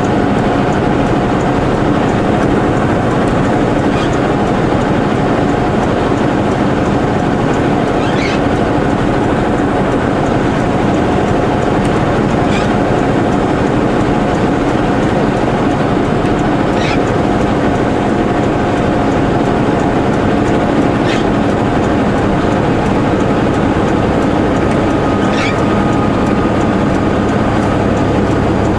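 Semi truck's engine and road noise droning steadily inside the cab while driving, with a short high squeak about every four seconds.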